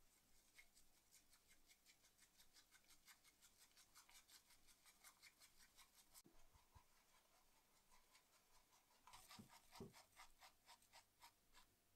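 Pencil sketching on paper: quick, scratchy strokes at about four a second that pause about halfway through and start again for a couple of seconds, with a few soft knocks in between.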